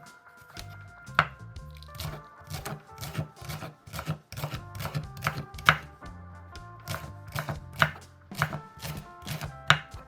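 Knife chopping on a cutting board: an irregular run of sharp knocks, about three or four a second, over background music with held notes and a bass line.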